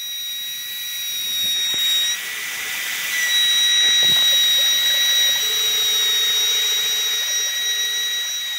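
CNC router spindle running with a steady high-pitched whine over a hiss.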